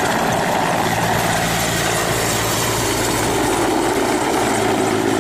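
Mil Mi-8-family military transport helicopter flying low, its twin turbine engines and main rotor making a steady, dense noise with a low drone underneath.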